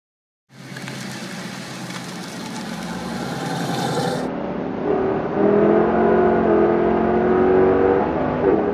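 Ford Mustang race car's V8 engine running hard, growing louder over the first few seconds. After an abrupt change about four seconds in, it settles into a louder, steady engine note at speed.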